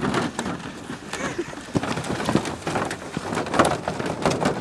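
Aluminium canoe on a wheeled portage trolley being hauled over a rough, muddy track: a dense run of irregular knocks and rattles, with footsteps.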